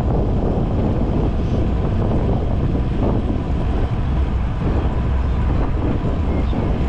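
Steady wind noise buffeting the microphone of a camera on a moving road bicycle.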